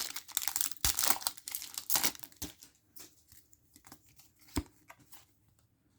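Foil wrapper of a Pokémon booster pack crinkling and tearing open by hand: dense crackling for the first couple of seconds, then a few scattered rustles and clicks.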